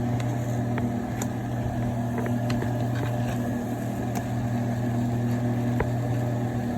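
A steady low mechanical hum, like a running kitchen appliance, with a few faint ticks scattered through it.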